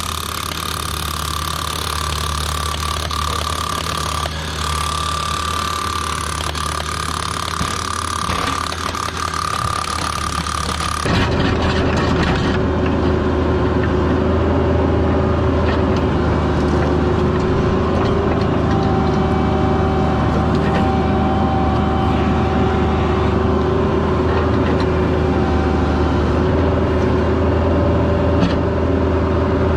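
Diesel engine of a CAT 304 mini excavator running steadily, with a high, steady whine over the engine drone. About 11 seconds in, the sound changes abruptly to a deeper, heavier engine drone that holds steady to the end.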